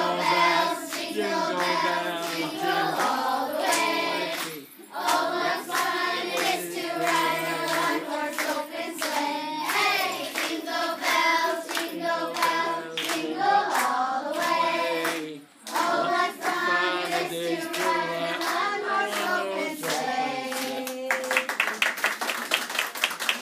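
A group of children singing a Christmas song together, with hands clapping along in time. Near the end the singing stops and applause follows.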